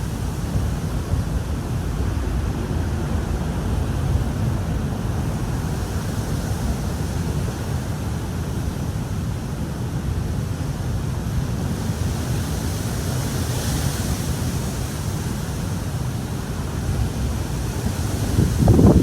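Strong wind buffeting the microphone: a steady low rumble with a hiss that swells about two-thirds of the way through, and a louder gust near the end.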